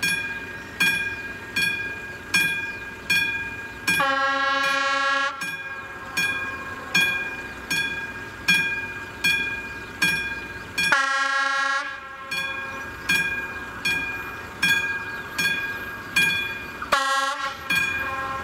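Classic level-crossing warning bell striking steadily, about four strikes every three seconds, each strike ringing on. An approaching train's horn sounds three times over it: a long blast about four seconds in, another around eleven seconds, and a short one near the end.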